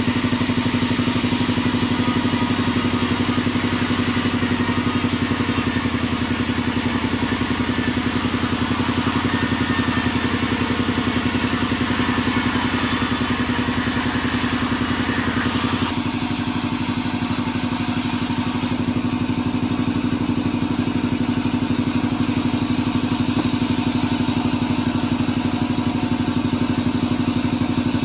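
A band sawmill running with a steady, loud, pulsing machine drone. The higher hiss over it eases off a little past halfway, while the drone carries on unchanged.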